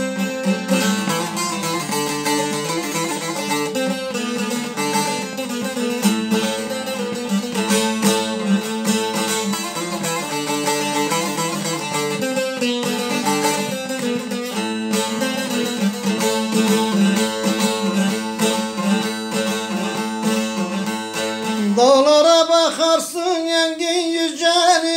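Instrumental interlude of a Turkish folk song (türkü), carried by plucked strings. A man's voice comes in singing the next verse about 22 seconds in.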